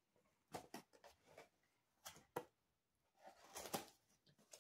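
Faint handling of a cardboard box: a few light taps and scrapes, then a longer scraping rustle about three and a half seconds in as the box's end flap is pulled open.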